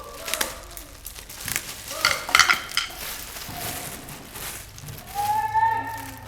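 Metal hand tools and parts being handled: scattered clinks and knocks, with a cluster of sharp metallic strikes about two seconds in and a brief ringing tone about five seconds in.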